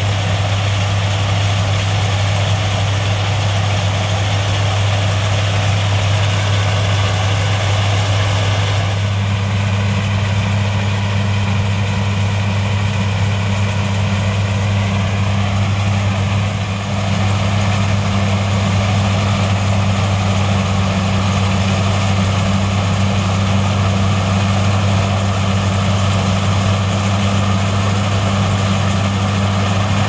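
John Deere S670i combine harvester running steadily while cutting and threshing rice, driven by its six-cylinder 9-litre PowerTech PSX diesel, a constant deep engine hum with machinery noise above it. The tone shifts about nine seconds in, when a second, higher steady hum comes in.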